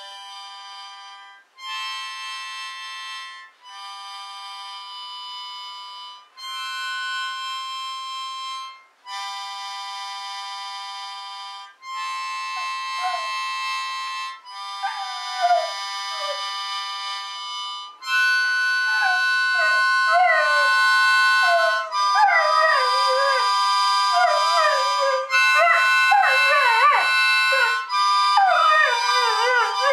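A harmonica playing long held chords, a few seconds each with short breaks between, and a dog howling along with wavering, rising and falling howls that start about halfway through and grow louder toward the end.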